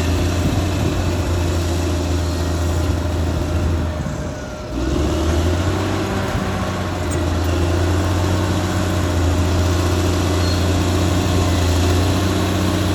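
Caterpillar D6R XL bulldozer's diesel engine running steadily, easing off briefly about four seconds in and then picking back up.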